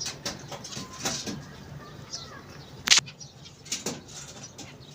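Ornamental birds calling briefly and moving about, with scattered sharp clicks and flutters and one loud sharp knock about three seconds in.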